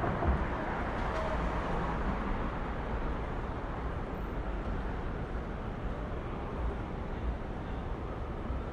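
City side-street traffic ambience: a steady wash of car and engine noise with a low rumble, a little louder in the first couple of seconds.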